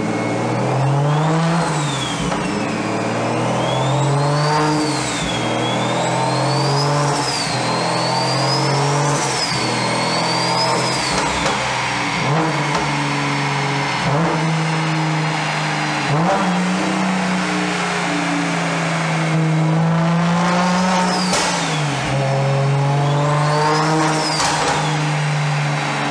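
BMW 1M's N54 straight-six with a single-turbo conversion, revving and accelerating repeatedly, with a high turbo whistle climbing and dropping with the revs. The revs climb and fall about five times in the first ten seconds, hold steadier through the middle, then rise quickly twice near the end.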